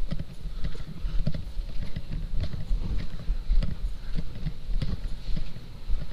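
Footsteps on carpet heard through a chest-worn body camera: dull low thuds about twice a second, with the camera jostling and rubbing against the wearer's clothing at each step.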